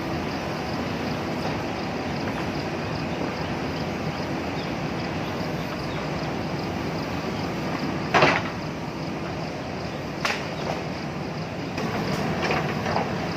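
JCB backhoe loader's diesel engine running steadily while it works. A loud sharp knock comes about eight seconds in, and lighter knocks follow near the end.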